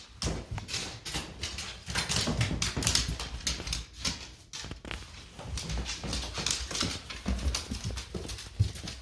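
A dog's nails clicking and its feet padding on a hard floor as it walks about, in an irregular run of taps.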